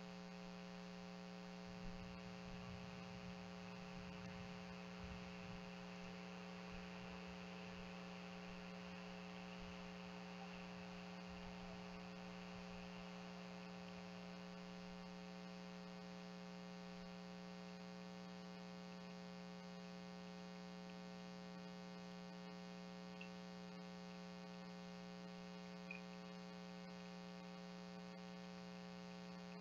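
Steady electrical mains hum with many overtones. A faint rushing noise comes and goes over the first dozen seconds, and two tiny clicks come near the end.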